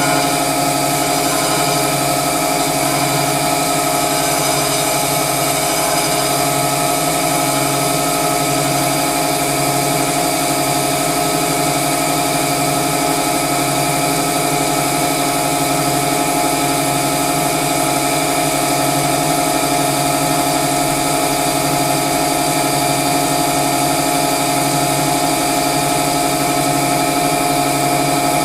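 Winona Van Norman CG250 crankshaft grinder running while grinding a crankshaft: a loud, steady machine hum made of several held tones, with a slow, regular pulsing in the low hum.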